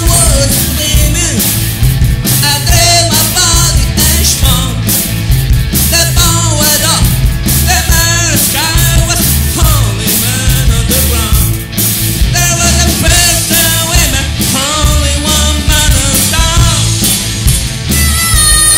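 Live rock and roll band playing: a male lead vocal over electric guitars, bass guitar and a drum kit with a driving beat. Near the end the singing gives way to a harmonica.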